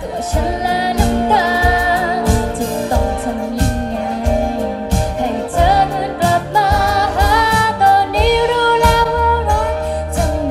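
Live band playing a Thai pop song, with a woman singing the lead melody over regular drum hits.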